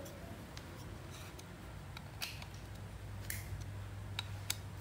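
Scattered small sharp clicks and taps of hands handling and fitting parts around the carburetor of a bare Tanaka 27cc two-stroke brush-cutter engine, over a low steady hum.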